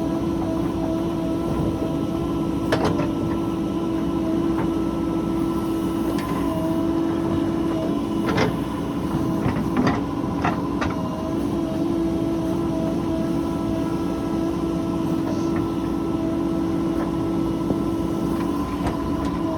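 Heavy diesel machinery running steadily at work, with a constant droning tone. A few sharp knocks come about three seconds in and again around eight to eleven seconds.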